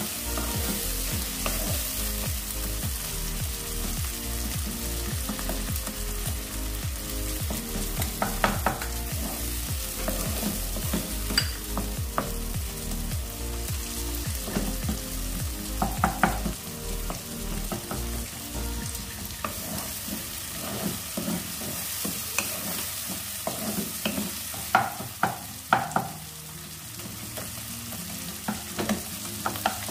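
Onion-tomato masala sizzling in oil in a nonstick kadhai while a spatula stirs and scrapes it, with occasional sharp knocks of the spatula against the pan.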